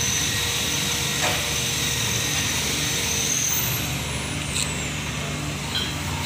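A motor running steadily with a low hum and a faint high whine.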